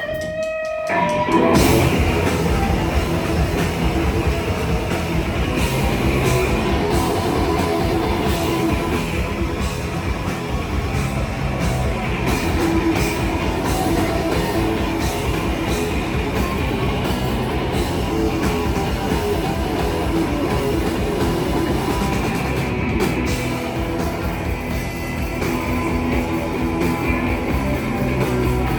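Live rock band playing loud with electric guitar and drums, the full band kicking in about a second and a half in after a held tone.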